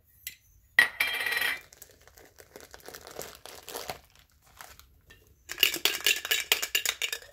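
A Funko Soda collectible can being opened and unpacked by hand: a sharp snap about a second in, then handling and crinkling of the packaging, with a loud burst of rapid crackling crinkles in the last two seconds.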